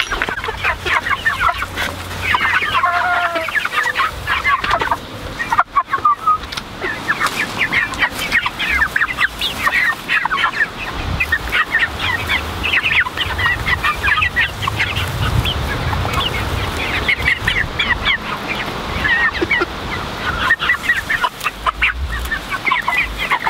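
A flock of young Barred Rock chickens clucking and chattering continuously, many short calls overlapping, while they forage on grass.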